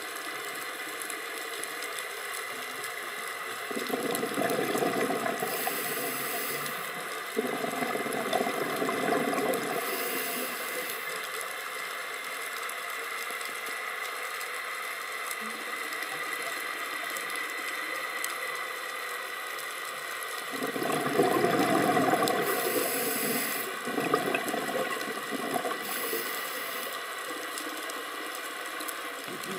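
Scuba diver breathing through a regulator underwater: four bubbling exhalations, with a short hiss of inhalation after each one, over a steady underwater hiss.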